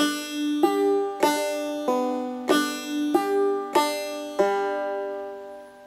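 Five-string banjo played clawhammer style: the finger strikes down on the first string while the thumb alternates to the fifth, second and third strings (drop thumb), in an even pattern with a stronger stroke about every two-thirds of a second. The last notes ring on and fade out near the end.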